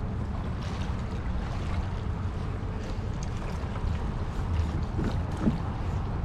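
Steady wind rumble on the microphone over choppy water lapping around a kayak, with a few faint ticks.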